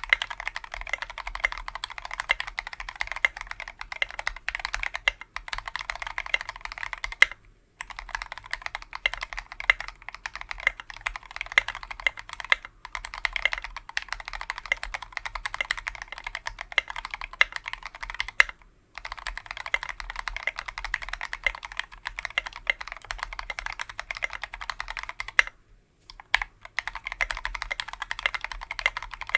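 Fast, continuous typing on a custom 60% mechanical keyboard with lubed Tealios V2 linear switches on a brass plate and SA-profile keycaps. The keystrokes run in quick streams broken by a brief pause about every five to six seconds.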